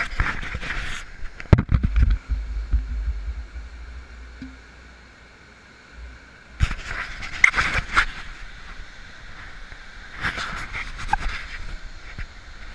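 Steady rush of river water over a small waterfall and rapids. Three bursts of rubbing and knocking come from the camera being handled and set down on the rock, and a low rumble, likely wind on the microphone, runs for a few seconds near the start.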